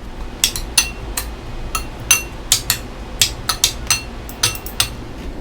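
A utensil clinking repeatedly against a bowl while stirring seasonings and vinegar together: about twenty irregular clinks, each with a brief high ring.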